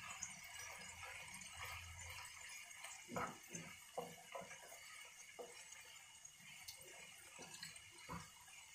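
Chopped onions and bell peppers frying in a nonstick pan, giving a faint steady sizzle. A wooden spatula scrapes and taps against the pan as the vegetables are stirred, in a run of short strokes from about three seconds in.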